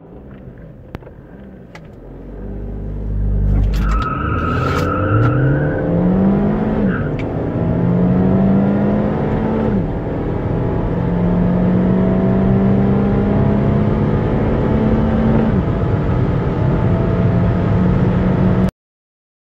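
A car engine under hard acceleration from a standstill through the gears. Its pitch climbs, drops at upshifts about seven and ten seconds in, then climbs on a long pull before levelling off, with a brief high tone about four seconds in. The sound cuts off suddenly near the end.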